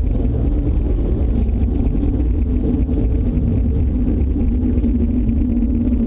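Loud, steady, deep rumbling drone with a low hum running through it: an unexplained noise that the people recording cannot place and fear is coming closer.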